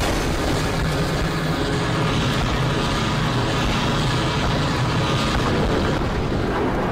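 Steady, even low rumble with a hiss over it, like wind or distant engines: the battle ambience of an animated short's soundtrack, with no speech or music.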